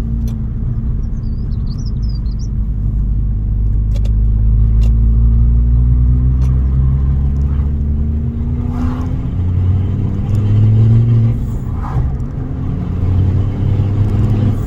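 Ford Focus ST Mk2's 2.5-litre turbocharged five-cylinder engine pulling under acceleration, heard from inside the car with heavy road rumble. The engine note climbs steadily over several seconds.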